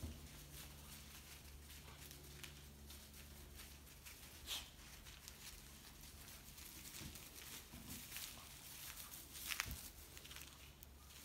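Faint rustling and crackling of loose straw as a standard schnauzer searches and climbs over straw bales, with a low steady hum underneath. Two sharper crackles come about four and a half and nine and a half seconds in.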